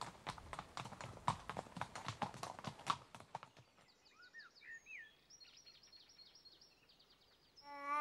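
Pony's hooves clip-clopping at a walk on packed dirt for the first three and a half seconds. After that come only faint, high chirps, and a baby's voice starts up right at the end.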